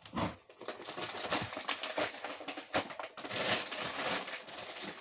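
Plastic food packaging rustling and crinkling as packages are handled and shifted in a plastic bucket, with many small clicks and knocks.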